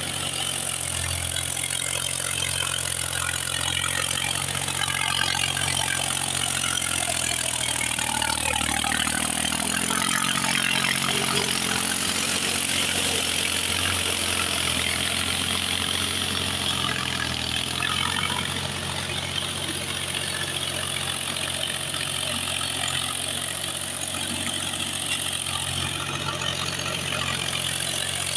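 Mahindra B-275 DI tractor's three-cylinder diesel engine running steadily under load as it pulls a cultivator through a flooded paddy field, growing a little louder partway through as it passes close.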